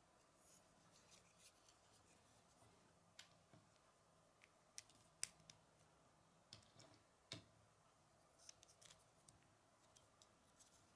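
Faint, scattered clicks and taps of plastic Lego bricks being handled and fitted together, with a few sharper clicks around the middle.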